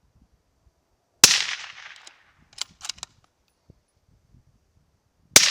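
Two rifle shots from a 6.5 Creedmoor firing 120 grain A-Max loads, about four seconds apart. Each is a sharp crack that dies away over the next second or so. A few faint clicks fall between them.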